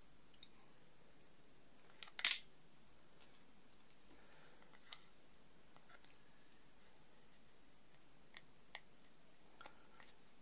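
Small metal clicks and clinks of a hinge pin and pliers being handled while the pin is fitted into the hinge of a plastic earbud charging case. A quick cluster of clicks about two seconds in is the loudest, followed by scattered light ticks.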